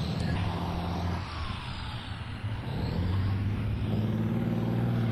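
Heavy military vehicle engine running with a steady low hum. It dips a little over a second in and grows louder again over the last two seconds.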